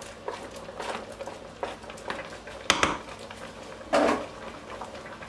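A wooden spatula knocking and scraping against a plastic plate and the pot as shrimps are pushed into a pot of soup. It makes a series of light knocks, the sharpest about two and a half seconds in and another about four seconds in.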